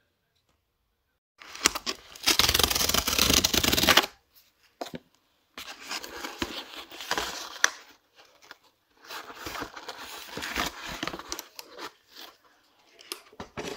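Cardboard mailer envelope being torn open: a loud rip lasting a couple of seconds about a second and a half in, then bouts of cardboard rustling and scraping as the flaps are pulled apart and a board book is slid out.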